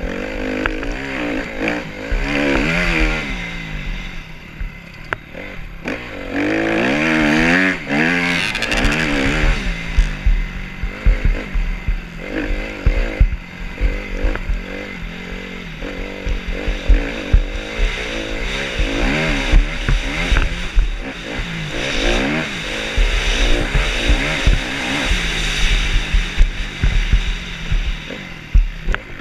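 Dirt bike engine revving up and down over and over as it is ridden hard across sand, heard from the rider's helmet with wind rushing over the microphone.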